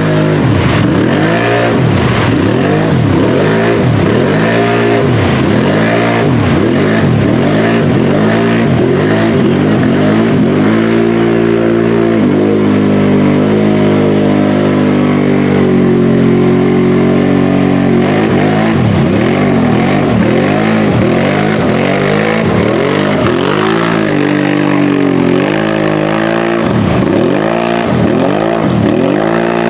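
Lifted mud ATV's engine revving hard over and over, the pitch climbing and dropping about once a second as its big tyres spin in deep mud. In the middle it holds a steady high rev for several seconds, then the quick rev-and-drop cycles start again.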